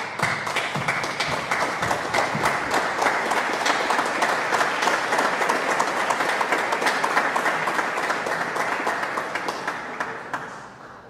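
Concert audience applauding with many hands clapping, dying away near the end.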